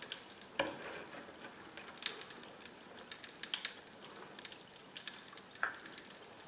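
Faint crackling of Mr. Bubble Magic Bath Crackles popping and snapping in bath water: many small, irregular ticks over a soft fizzy hiss, with a couple of slightly louder snaps about half a second in and near the end.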